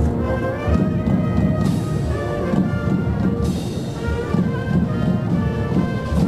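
Wind band playing brass music over a regular drumbeat.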